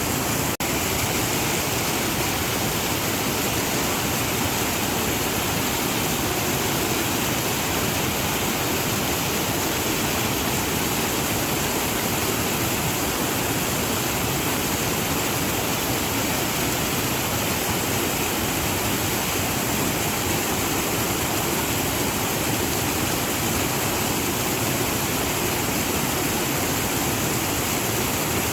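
Waterfall: a steady, dense rush of falling water, with a momentary break about half a second in.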